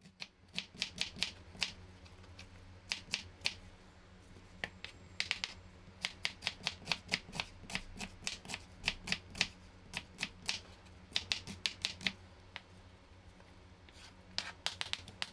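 Kitchen knife slicing a red onion on a wooden cutting board: quick, irregular taps of the blade hitting the board in runs, with short pauses between them.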